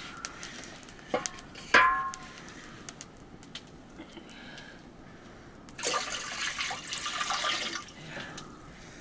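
Water splashing and pouring, loudest for about two seconds past the middle. Near two seconds in, a sharp, short high call falling in pitch stands out as the loudest moment.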